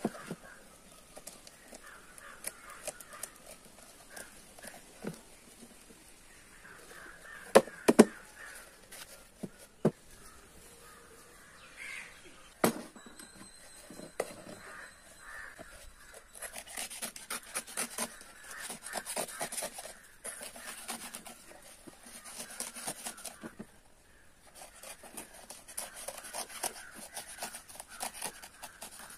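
Scissors and then a utility knife cutting and scraping the dry coir fibre out of a coconut husk shell: scratchy rasping in runs, denser in the second half, with a few sharp clicks before that.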